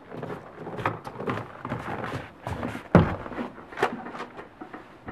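A run of irregular knocks and thumps, the loudest about three seconds in.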